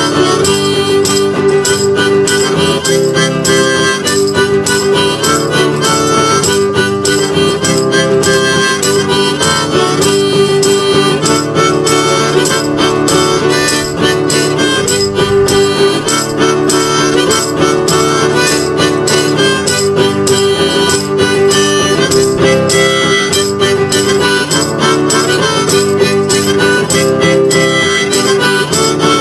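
Background music: a harmonica tune over guitar accompaniment.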